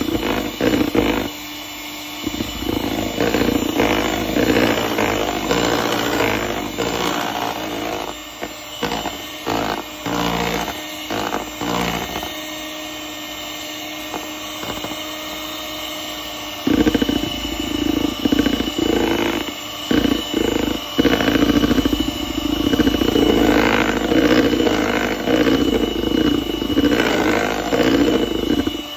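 Electric hand mixer running, its beaters whisking thick cake batter in a plastic bowl with a steady motor whine and frequent short knocks. It gets louder a little over halfway through.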